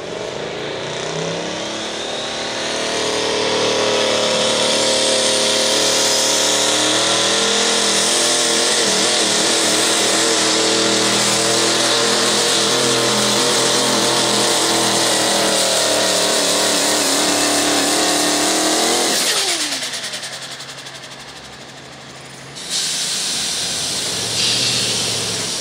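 Turbocharged pro stock diesel pulling truck at full throttle: engine and turbo whine rise in pitch in the first few seconds, then hold steady. About nineteen seconds in, the pitch falls sharply and the sound dies down as the truck comes off the throttle. A sudden louder noise breaks in again near the end.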